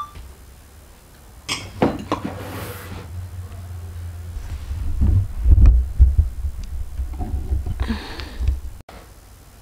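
Camera handling noise as the camera is picked up and carried: a low rumbling with a few sharp knocks and clicks, starting about a second and a half in, loudest around the middle and stopping near the end.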